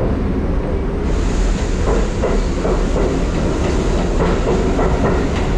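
New York City 6 subway train pulling out along the platform, picking up speed: a steady, loud rumble of steel wheels on rails, with a rising hiss about a second in and repeated clicks as the wheels cross rail joints.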